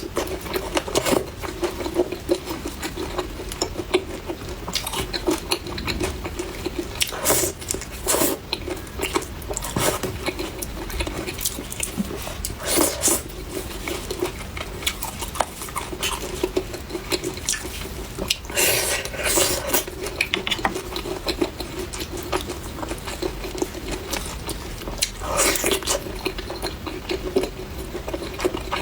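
Close-miked eating of fried chicken: repeated bites, crunching and chewing with small clicks. A louder crunchy stretch comes roughly every five seconds, over a steady low hum.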